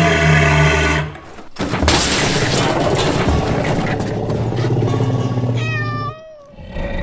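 Slapstick sound effects: a low droning tone cuts off about a second in, then a loud noisy rush with a low hum under it runs for about four seconds. Near the end comes a short cat-like yowl that bends up and down in pitch.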